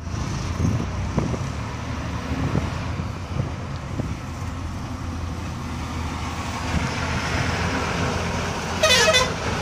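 Steady low engine and road rumble heard from inside a moving bus as it overtakes other buses and trucks, with a short, rapidly pulsing horn blast about nine seconds in.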